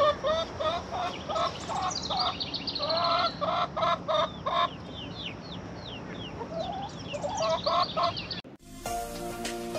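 Chickens clucking: a run of short, repeated pitched clucks, with higher, quick downward chirps among them. Plucked music starts suddenly near the end.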